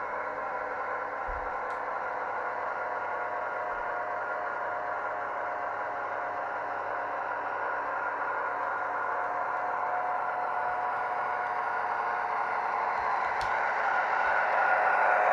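Model diesel locomotive running along the track toward the microphone: a steady whirring running noise with a faint hum in it that grows louder near the end as it draws closer. Two faint clicks come through, one early and one near the end.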